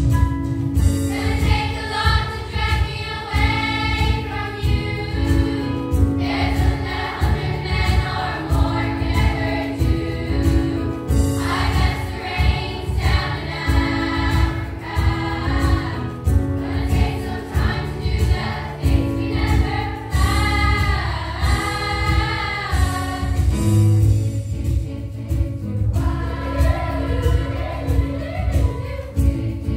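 A children's choir singing a song together, accompanied on keyboard, with a steady beat underneath.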